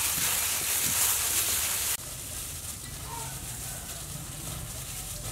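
Plastic-gloved hands mixing shredded green papaya salad in a stainless-steel bowl make a steady, crackly rustling hiss. About two seconds in it cuts off abruptly, leaving a quieter outdoor background with a low hum and a few faint chirps.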